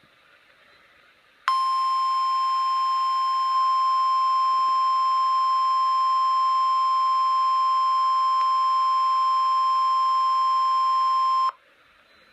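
Weather radio Emergency Alert System attention tone: one steady, loud, high-pitched tone lasting about ten seconds. It starts about a second and a half in and cuts off abruptly, marking the start of an alert broadcast, here a flash flood watch. Faint radio hiss before and after.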